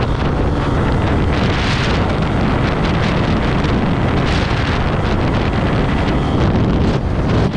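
Steady, loud wind noise on the microphone of a motorcycle travelling at about 72 mph on the highway.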